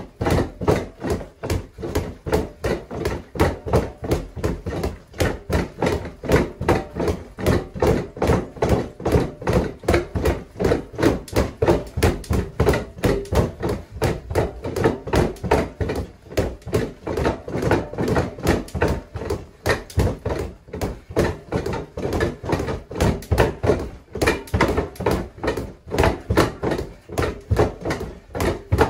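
Gloved fists punching a freestanding punching bag in a fast, steady stream of dull thuds, several a second.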